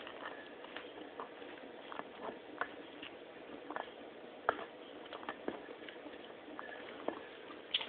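Pets eating: irregular light clicks and taps, two or three a second, over a steady faint hiss.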